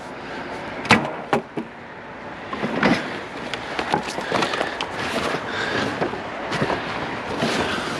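Junk being rummaged through and tossed about in a dumpster: scattered knocks and clatters over rustling and scraping, the sharpest knock about a second in.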